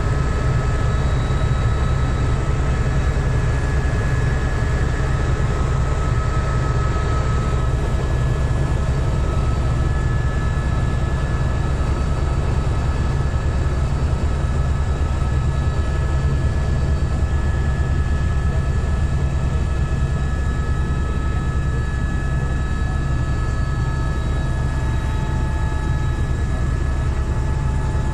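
Helicopter cabin noise in level flight: a steady low drone of the rotor and engine, with a thin steady high whine over it.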